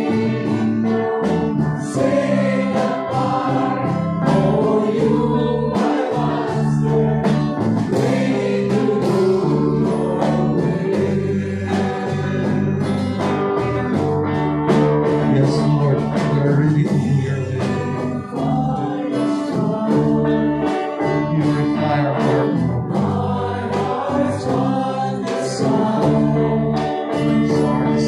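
Live praise and worship song: voices singing a gospel melody over a small band of keyboard, electric guitar and acoustic guitar.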